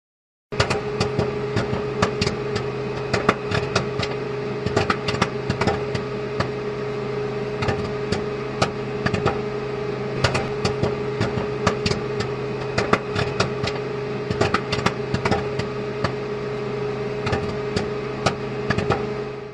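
Popcorn popping inside a popcorn vending machine: irregular sharp pops over the machine's steady motor hum. It starts about half a second in and begins to fade near the end.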